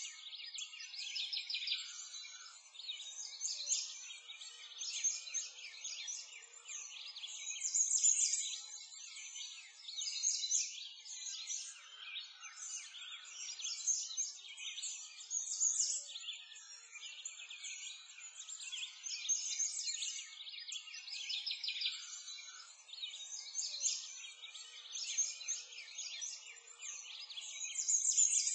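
A dense chorus of songbirds chirping and singing, many short high-pitched calls overlapping, swelling and easing every couple of seconds.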